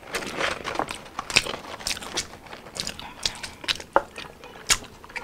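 Close-up chewing and crunching of fried fast food, seasoned curly fries and fried chicken, by two people eating. It is an irregular run of sharp crunches and wet mouth clicks, with a few louder crunches standing out.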